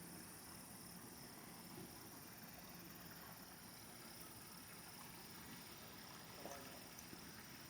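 Near silence: faint steady outdoor background hiss, with one soft short sound about six and a half seconds in.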